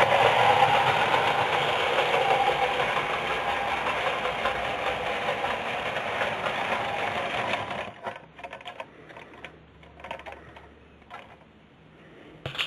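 Bassett-Lowke 'Duke of York' clockwork tinplate locomotive and three carriages running on O gauge track: a dense whirring rattle of the spring motor and wheels that slowly grows quieter and stops abruptly about eight seconds in, as the clockwork runs down. A few faint clicks follow.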